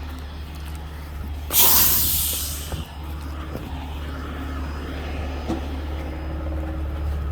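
Heavy tow truck's diesel engine running steadily. About a second and a half in, a loud blast of compressed air hisses out of its air brakes and fades away over about a second.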